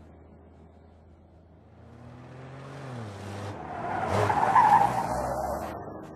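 A car driving past: its engine and road noise build, peak just past the middle, and fade away, with the engine note dropping about three seconds in.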